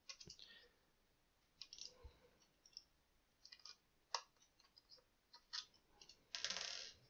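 Faint clicks and scratches of a small screwdriver, fitted with a homemade bit for split-flathead security screws, turning screws out of a plastic device case. A short scraping rattle comes near the end.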